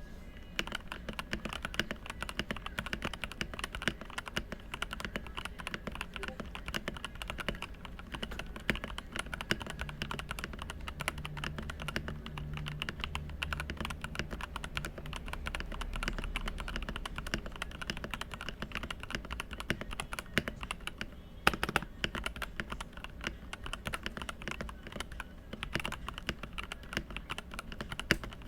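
Stock, unmodified Langtu GK65 mechanical keyboard being typed on continuously: a fast, unbroken run of key clicks, with one louder clack about two-thirds of the way through.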